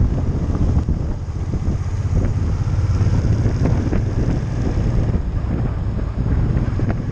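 Wind rushing and buffeting over the microphone of a camera on a moving motorcycle, with the motorcycle's engine running steadily under it.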